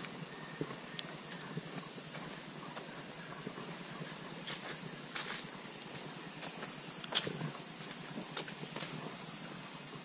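Steady high-pitched insect chorus of the tropical forest, one constant shrill tone with a buzzing hiss above it, and a few soft footsteps on the path.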